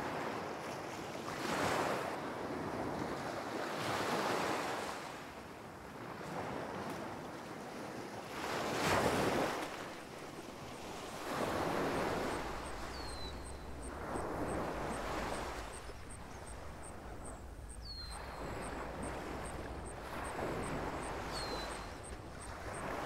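Sea waves breaking on a shore, swelling and falling away every two to three seconds, with wind. From about halfway through, a faint fast high ticking and a few short high chirps sit above the surf.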